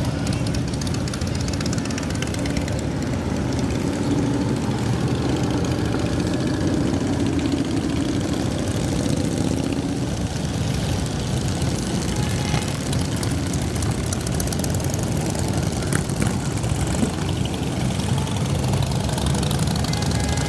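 Many motorcycle engines running together, a steady low rumble with a slight rise in pitch partway through.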